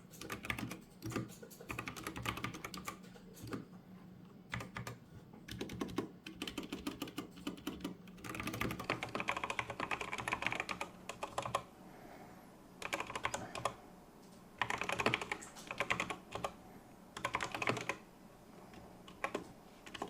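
Typing on an E-Yooso Z87 mechanical keyboard with Otemu Brown switches and PBT double-shot keycaps: quick runs of key clacks, broken by short pauses in the second half.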